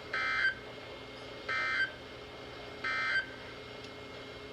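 Emergency Alert System end-of-message (EOM) data bursts: three short digital bursts, each about a third of a second and roughly 1.4 s apart, the code that closes a warning broadcast.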